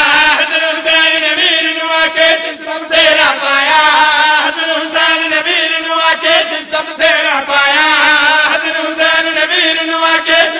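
A group of men chanting together into a microphone, a devotional chant with held notes and a wavering melody.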